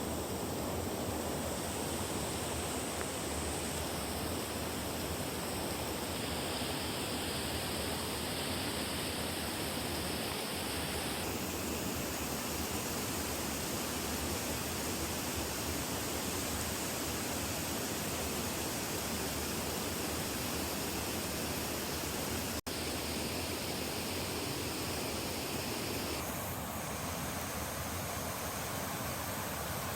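Steady, even rushing noise that shifts abruptly in tone a few times and drops out for an instant a little past the middle.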